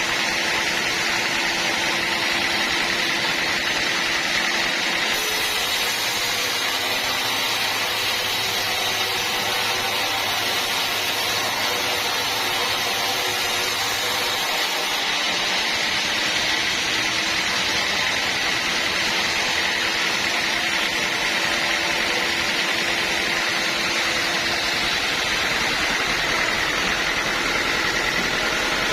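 Bandsaw mill running steadily, with a constant high whine over the machine's noise.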